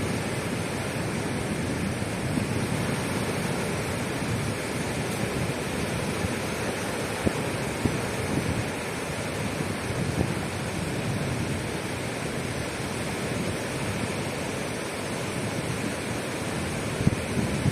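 Caspian Sea waves washing steadily onto the shore, an even rushing hiss with a few brief louder moments.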